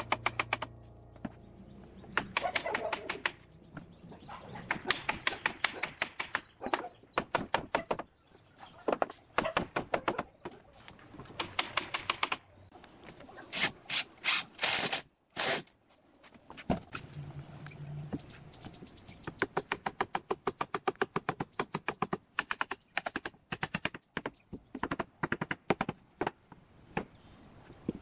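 Hammer blows and a cordless impact driver driving screws into pine roof boards, heard as sharp knocks and runs of rapid clicking that stop and start, with brief pauses between.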